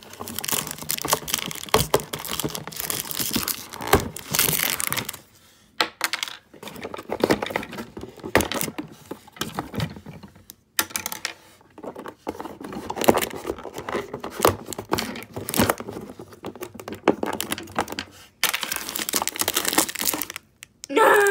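Cardboard packaging of a Breyer model horse box being handled and torn by hand, in irregular bursts of crackling, rustling and small clicks with short pauses between.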